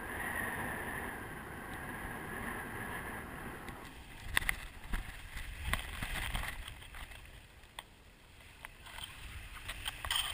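Wind rushing past a paraglider's wing-mounted camera for the first few seconds, then irregular rustles, flaps and knocks as the canopy fabric and lines come down onto the grass.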